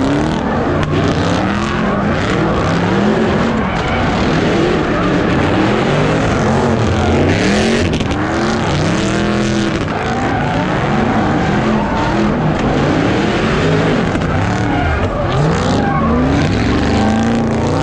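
Several cars spinning donuts at once, their engines revving up and down over and over above a constant rush of spinning, skidding tyres.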